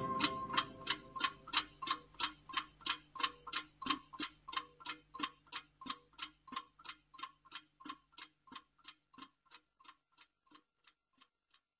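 A clock ticking, about three ticks a second, fading away gradually until it stops near the end. Under the first ticks, a faint held tone dies out.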